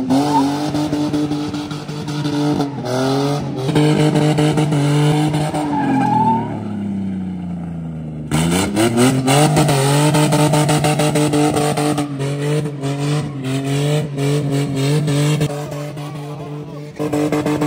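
Ford Mustang doing donuts: the engine is held at high revs while the rear tyres squeal and skid. Past the middle the revs sag and the squeal stops for about two seconds, then the engine revs sharply back up and holds high, tyres squealing again.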